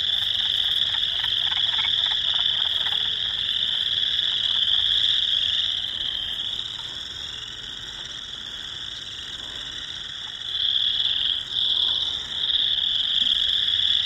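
Dense chorus of frogs calling from a marsh, a continuous high-pitched shrill. The chorus thins and drops in level from about six to ten seconds in, then swells back to full strength.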